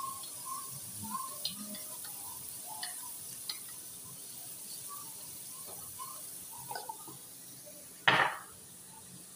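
Diced chicken frying gently in a steel karahi with a faint, steady sizzle, and a few light ticks as black pepper is shaken in from a glass jar. A short loud knock comes about eight seconds in.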